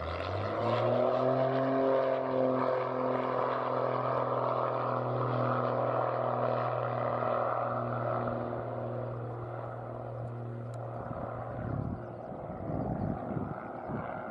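Twin-engine propeller trainer aircraft on its takeoff run: the engine note rises over the first second as power comes up, then holds a steady propeller drone through the takeoff roll and lift-off, fading about eleven seconds in as the aircraft climbs away.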